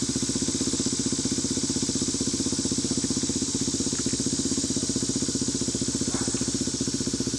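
1995 Yamaha Warrior 350 ATV's single-cylinder four-stroke engine idling steadily through an aftermarket DG full exhaust, with an even, unchanging exhaust beat.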